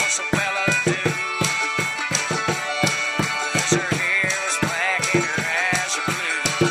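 Bodhran struck with a wooden tipper in a steady run of strokes, played along to recorded Irish folk music with a bending melody line.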